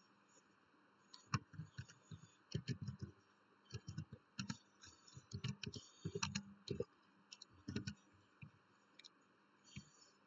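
Typing on a computer keyboard: faint, irregular clusters of key clicks for several seconds, then one lone click near the end.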